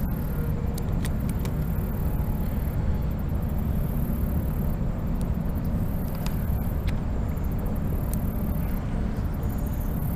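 Wind buffeting the microphone, a steady low rumble, with a few faint clicks on top.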